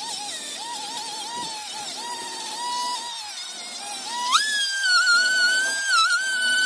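Small electric power-tool motor whining at varying speed, then speeding up about four seconds in to a higher, louder, steadier whine.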